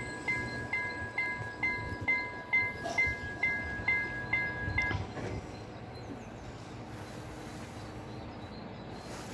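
Level-crossing warning bell ringing in quick, even strikes, a little over two a second, while the barrier arms lower. It stops about five seconds in, once the barriers are fully down.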